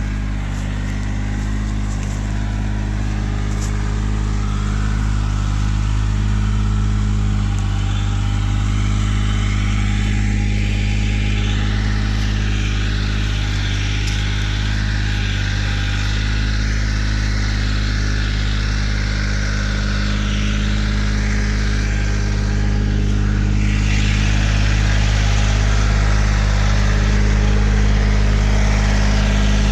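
Engine of a Vallee Big Red portable sawmill running steadily at a constant speed, with a harsher hiss added for a stretch in the middle.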